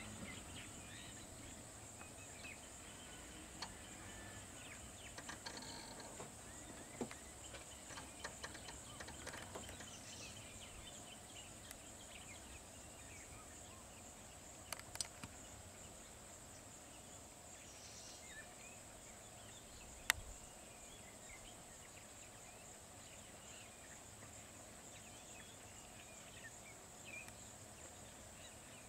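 Faint outdoor ambience: a steady high-pitched insect drone with a few faint bird chirps and scattered sharp clicks, the sharpest about twenty seconds in.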